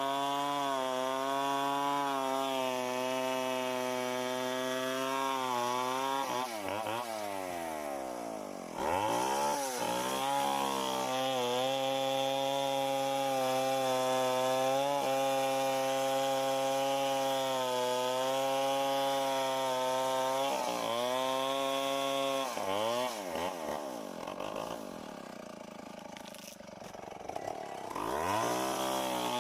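Tecomec two-stroke chainsaw running at high revs while cutting mango wood. Its pitch dips and climbs back about a quarter of the way in and again about two-thirds through, then it runs lower and quieter for a few seconds before revving up again near the end.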